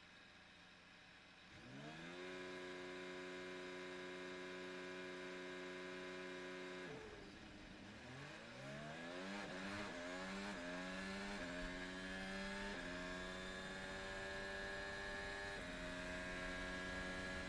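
Red Bull RB16B Formula 1 car's Honda 1.6-litre turbocharged V6, heard from the onboard camera. The revs rise a second and a half in and are held steady on the grid. About seven seconds in they dip as the car launches off the line, then climb again through a quick run of upshifts.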